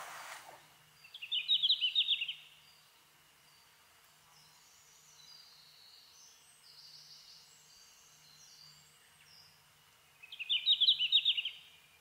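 Male red-flanked bluetail singing: two short song phrases about nine seconds apart, each a quick run of high notes lasting about a second.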